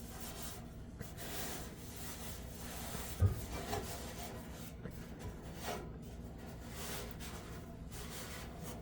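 Faint rustling and rubbing as dryer lint is pulled out by hand, with a light knock about three seconds in.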